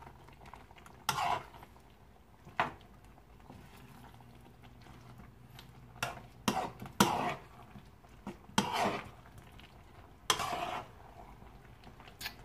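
A metal spoon scraping and knocking against a frying pan as a saucy meat-and-vegetable mix is stirred, in a series of short scrapes a second or two apart.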